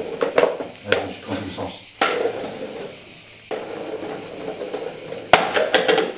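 A few sharp knocks and clatters on a hard tiled floor, the loudest about five seconds in, over a steady hiss.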